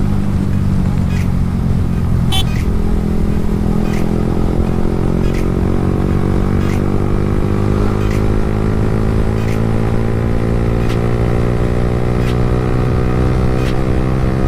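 Yamaha R15 V3's single-cylinder engine running under way, its pitch climbing slowly and steadily as the bike accelerates. Short sharp clicks sound about every second and a half over it.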